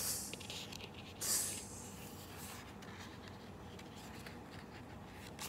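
A woman hissing 'tss, tss' through her teeth, two short sharp hisses a little over a second apart, voicing the monkeys' reply in the story.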